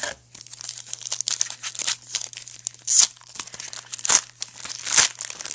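Crinkling and tearing of a trading-card pack wrapper being handled and opened, a dense crackle with sharper rips about three, four and five seconds in.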